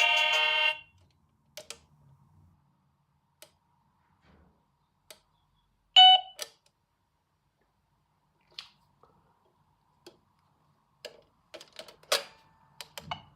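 A doorbell chime unit finishes playing its tune about a second in, followed by scattered clicks and knocks of the plastic unit being handled. The loudest is a sharp click with a brief tone about six seconds in, and a cluster of clicks comes near the end.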